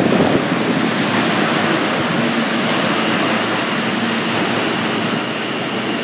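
R160A-2 subway train running past an underground platform: a steady rush and rumble of steel wheels on rail, with a faint steady whine under it.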